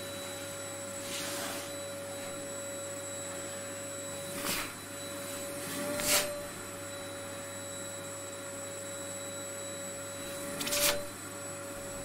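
Vacuum cleaner running, a steady motor whine over a rush of air. Brief louder surges of air come about a second in, twice around the middle and near the end.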